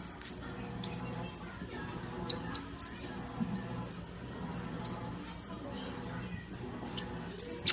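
Parrot giving short, high chirps and squeaks at irregular intervals over a steady low hum.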